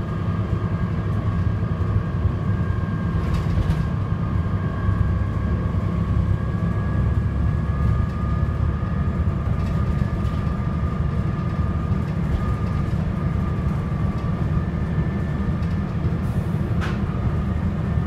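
Volvo B7TL double-decker bus under way, heard from inside the lower deck: its six-cylinder diesel runs with a steady low rumble and a constant high whine, and there are a few light rattles from the body.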